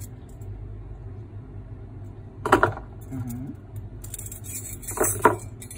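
Gold bangles clinking and jangling as they are handled in the hand. A plastic zip bag crinkles about four seconds in, over a steady low hum. Two brief loud sounds come about two and a half and five seconds in.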